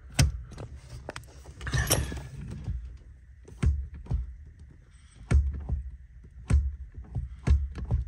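Accelerator pedal of a VW Mk2 Golf pressed and released by hand over and over, giving a knock or click every second or so as it moves through its travel; the throttle cable has just been tightened so the pedal has no slack or play.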